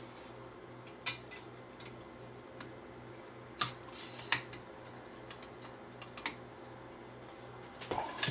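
Metal spatulas scraping and clicking against a Corning Ware Pyroceram loaf dish as a soft meatloaf is pried loose: a few separate clicks and scrapes, the sharpest about three and a half and four seconds in. Near the end comes a short cluster of clicks as the loaf is carried onto a ceramic plate.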